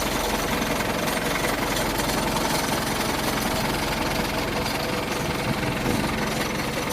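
Fishing boat's engine running steadily with a rapid, even knocking beat.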